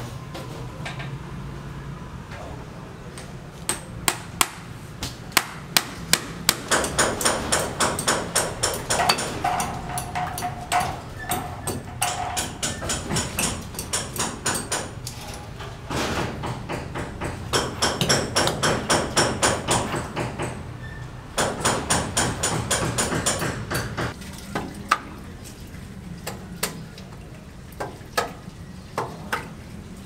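Hammering on a building site: runs of rapid blows, several a second, broken by short pauses, then a few scattered knocks near the end.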